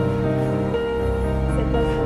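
Background music with long held notes, changing pitch every half second or so.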